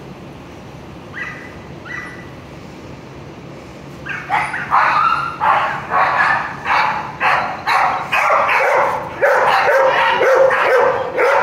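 A dog gives a couple of short high whines, then about four seconds in breaks into loud, rapid barking, about two barks a second, that runs almost without a break near the end.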